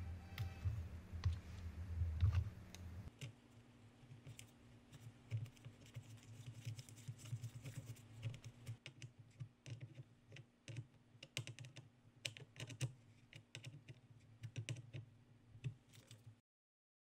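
Irregular light clicks and taps of metal and plastic IBM Model F keyboard parts being handled and fitted together by hand, over a faint steady hum. The sound cuts off near the end.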